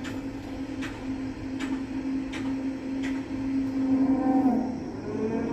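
A steady mechanical hum, one pitch held, with light clicks at a regular pace. Near the end the hum wavers and its pitch glides up and down.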